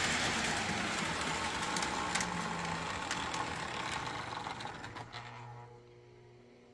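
Postwar Lionel O gauge locomotives with Pullmor motors running on three-rail track, their whir and wheel clatter dying away over about five seconds as the train slows, leaving a low steady hum.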